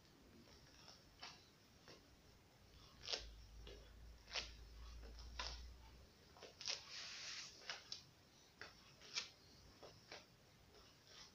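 Plush slippers stepping and scuffing on a tiled floor: irregular soft taps and clicks as the feet slip in and out of them, with a brief brushing scuff about seven seconds in.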